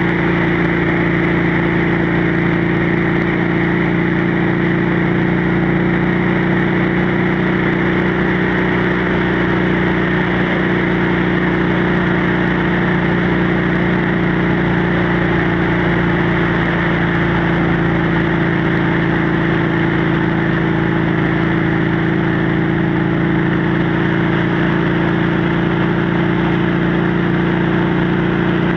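Motorcycle engine and exhaust running steadily at a constant cruising speed, with wind rush over the rider and road noise. The engine note holds an even pitch with no change in throttle.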